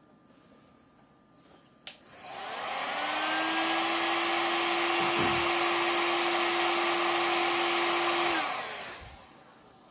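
A small electric motor-driven tool is switched on with a click. It spins up over about a second, runs steadily with a whirring hum and hiss for about six seconds, then is switched off and winds down.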